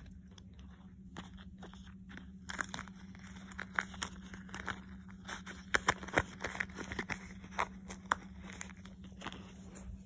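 Faint scattered clicks, taps and rustling of small doll accessories and toys being handled and put away, over a low steady hum.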